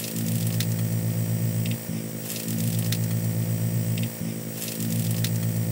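A low, steady electrical-style buzz with crackle and light ticks over it, dipping briefly about every two seconds.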